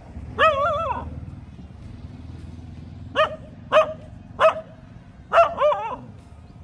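A dog barking: one drawn-out, wavering bark about half a second in, then a run of four short barks about half a second apart, ending in another drawn-out wavering bark.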